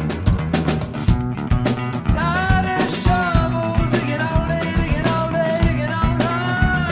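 Rock band music: a steady drum beat over a bass line, with a bending melody line that comes in and drops out above it.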